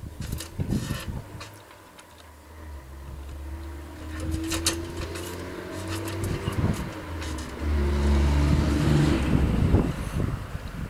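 An engine running nearby, growing louder over several seconds, loudest near the end, then dropping back. A few sharp clicks sound about half a second in and again around four and a half seconds.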